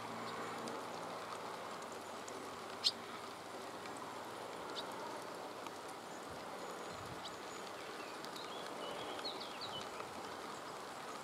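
Steady outdoor background hiss in a rainy meadow, with a single sharp tick about three seconds in. A few faint, short, high bird chirps come near the end.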